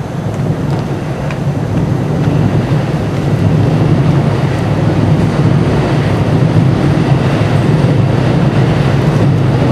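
A loud, low, steady rumble that swells over the first few seconds and then holds, like heavy rail or traffic noise in a busy city walkway.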